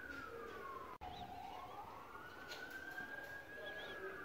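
A faint siren wailing: its pitch slides down, cuts out briefly about a second in, then climbs slowly and holds high.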